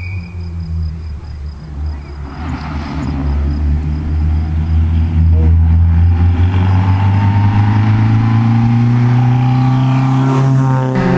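Rally car on a closed stage accelerating hard toward the listener, its engine note growing louder and climbing steadily in pitch as it approaches, loudest as it passes close near the end.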